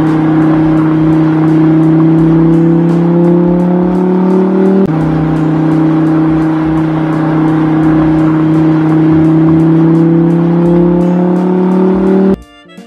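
A car engine accelerating: a steady engine note that rises slowly in pitch, drops once about five seconds in, as at a gear change, then climbs again until it cuts off suddenly near the end, where piano-like music starts.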